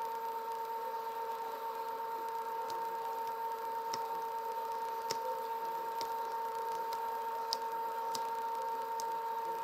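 A steady machine hum holding two constant tones, from an unseen appliance, runs under a few faint sharp clicks of a knife scoring a set nut-and-jaggery chikki slab in a steel plate.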